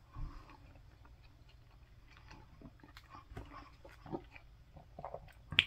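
A person chewing a mouthful of TASTYKAKE caramel apple pie close to the microphone: faint, scattered wet mouth sounds and small clicks, with one sharp click near the end.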